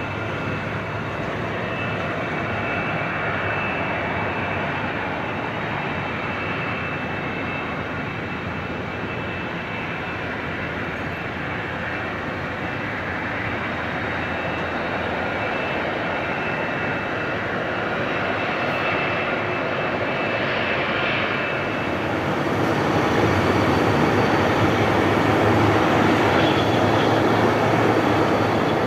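Boeing 767-300ER's jet engines running at taxi power: a steady rush with a faint high whine. About 22 seconds in, the sound changes to a louder, broader rush.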